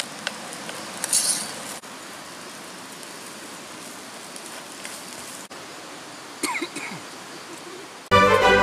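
Steady background hiss with a few light clinks of cookware and utensils. Music with sustained instrument notes comes in near the end.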